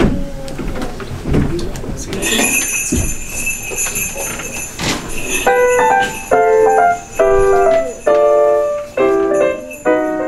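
Small bells ring with a steady shimmer, then a piano starts playing, with a series of separate chords and notes beginning about five seconds in.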